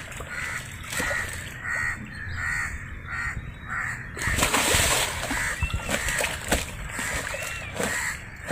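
Pond water splashing as men handle a large black carp held in a cloth, with a loud burst of splashing about four seconds in as the fish stirs. A bird calls over and over behind it, about two calls a second.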